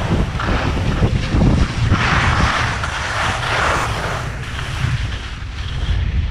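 Wind buffeting the microphone of a camera moving downhill on skis, a steady low rumble, with the hiss of skis sliding and scraping over packed snow that swells about two to four seconds in.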